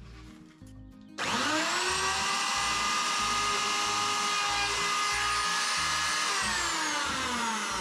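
Handheld plunge router switched on about a second in, its motor whine rising quickly to full speed and running steadily as it cuts a 3/8-inch groove in a plywood sheathing panel. It is switched off about six seconds in, and the whine falls in pitch as the motor winds down.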